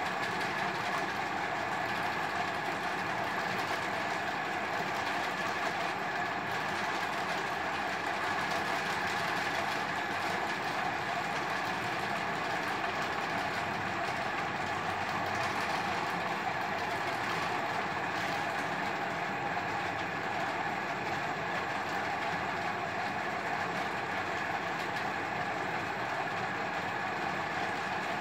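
Steady, even mechanical hum with a faint high whine.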